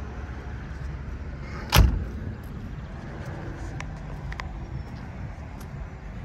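A car door is shut once, a single heavy thud a little under two seconds in. A couple of faint clicks follow.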